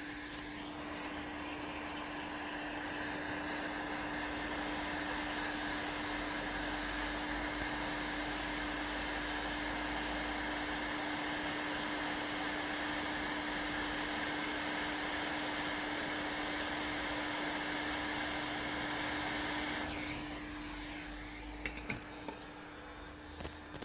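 Hot air rework station blowing steadily, a fan hiss with a constant hum, while inductors are reflowed back onto a laptop motherboard. It shuts off about 20 seconds in, followed by a few light clicks.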